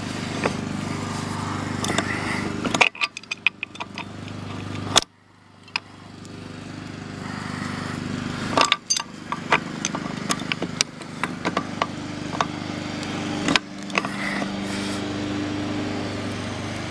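Pipe wrench clicking and knocking against the steel fittings of a gas meter, with a quick run of clicks about three seconds in. A steady engine-like drone runs behind it, dropping out twice early on and fading back in.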